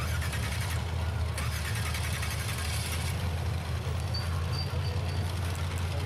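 Rock-racing buggy's engine running steadily at low throttle as the buggy crawls up a steep rutted dirt climb.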